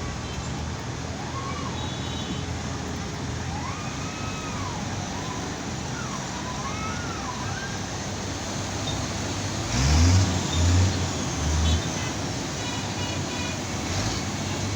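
Steady road-traffic and heavy-machinery noise at a flyover construction site. A siren-like tone rises and falls several times in the first half. About ten seconds in come three loud, low engine surges in quick succession.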